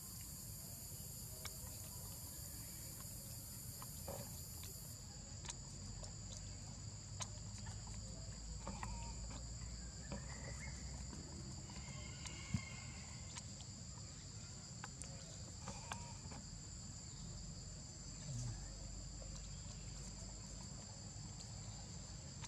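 Steady high-pitched chorus of insects, two even pitches held without a break, with a still higher hiss that cuts off about five seconds in. A low steady rumble runs underneath, with a few faint scattered ticks.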